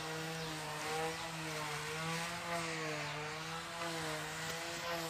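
Electric finishing (sheet) sander with 100-grit emery paper running on an old vengai wood door: a steady motor hum that wavers slightly in pitch, over the hiss of the abrasive on the wood.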